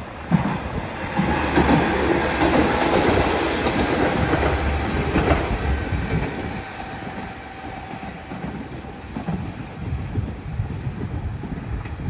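Two-car JR West KiHa 47 diesel railcar set passing at close range, its wheels clacking over the rail joints. It comes on suddenly, is loudest for the first half and then fades as it pulls away.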